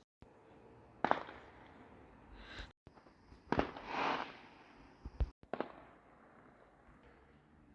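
Fireworks exploding: a sharp bang about a second in, another about three and a half seconds in followed by a crackling spray, and two more quick bangs around five seconds.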